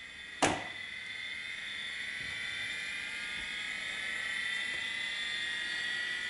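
A Seagate 10 GB 5.25-inch full-height SCSI hard disk spinning up. A single sharp click comes about half a second in, then a high motor whine that slowly rises in pitch and grows louder as the spindle accelerates. The disk now spins up with a replacement controller board fitted, where before it would not spin at all.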